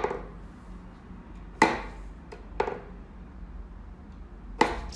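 Four sharp wooden knocks from a wooden whack-a-mole cat toy as a cat swats at its pop-up pegs, the second knock the loudest.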